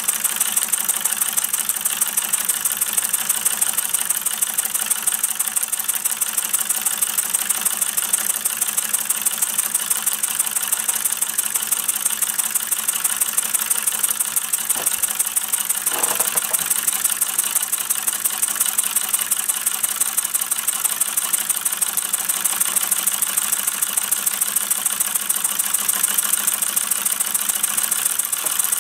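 Mamod SP7 twin sleeve-valve model steam engine running steadily: a fast, even beat of exhaust chuffs over a constant steam hiss.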